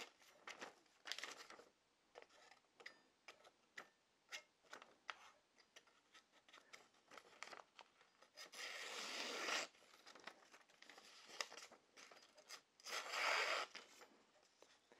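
Kitchen knife slicing through a hand-held sheet of newspaper: a few short rasping cuts, the longest about a second in the middle, with light paper crinkles and ticks in between. The paper still cuts, but the edge feels slightly duller, worn by the blade tip dragging on the cutting board.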